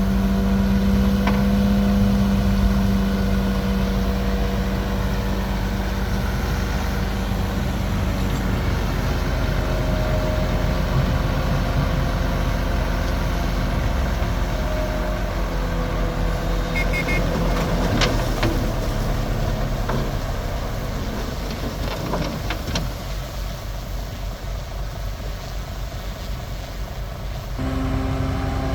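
Bulldozer's diesel engine running steadily while working, its pitch shifting as the load changes, with a few sharp clanks about two-thirds of the way through. It eases off somewhat, then picks up again near the end.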